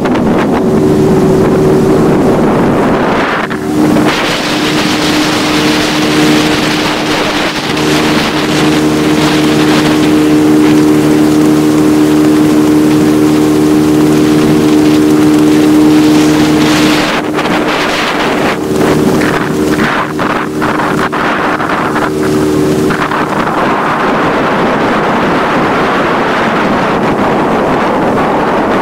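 Motorboat engine running steadily under way, with water rushing past and wind buffeting the microphone. About three-quarters of the way through, the engine's hum fades out, leaving wind and water noise.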